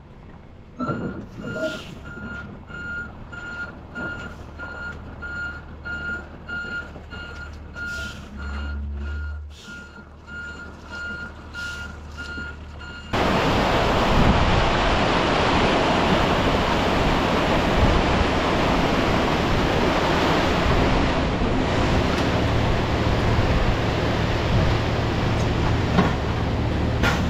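Backup alarm on a work vehicle beeping steadily, about two beeps a second, over a low engine rumble. About halfway through it gives way abruptly to loud wind buffeting the microphone.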